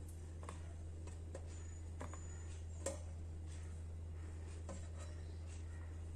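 Faint soft taps and small clicks as dough dumplings are set down on a cloth-lined steel idli plate, the sharpest click about three seconds in, over a steady low hum.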